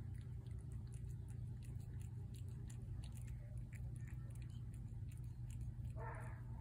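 A cat chewing wet salmon pâté from a plate: soft, repeated chewing with scattered small wet clicks over a steady low background hum. A short pitched sound comes near the end.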